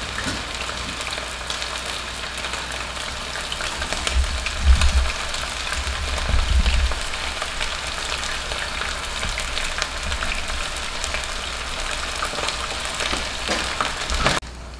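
Batter-coated chicken pieces deep-frying in hot oil in a wok, a steady crackling sizzle with many small pops. A few low thuds come about four to seven seconds in, and the sizzle drops suddenly to a quieter level just before the end.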